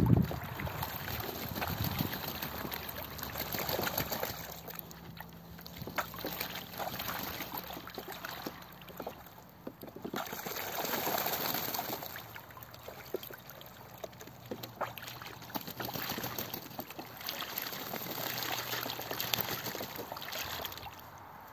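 Muscovy ducks bathing in a shallow plastic tub of water: splashing, dabbling and trickling water that comes in uneven swells.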